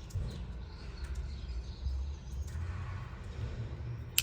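A low steady background rumble, then one sharp click near the end, like a slip-joint tool of a Victorinox Ranger Grip 55 pocket knife snapping into place.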